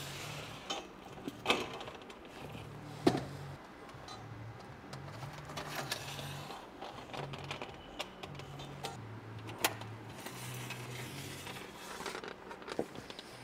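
Scattered metal clicks and knocks of rooftop-tent mounting brackets and bolts being handled and slid into the channel under the tent rail, with a few sharper knocks about 1.5 s, 3 s and near 10 s in.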